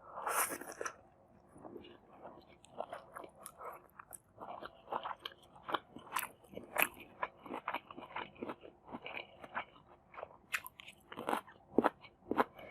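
Close-miked eating: a loud bite just after the start, then steady crunchy chewing with many short crisp clicks and wet mouth sounds.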